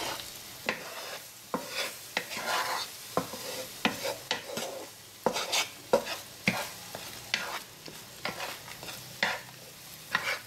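Wooden spatula stirring soft scrambled eggs in a nonstick frying pan, with irregular scrapes and taps against the pan over a light sizzle of the eggs cooking in ghee.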